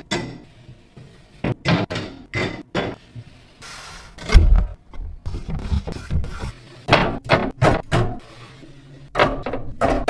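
Drink containers knocking and clinking as they are set into a drink fridge: a run of about a dozen sharp knocks with brief ringing, and one heavier low thump about four seconds in.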